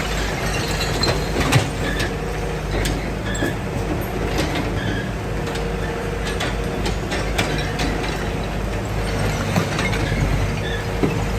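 Excavator engine running steadily while it demolishes an old house, with scattered sharp knocks and cracks of breaking material throughout.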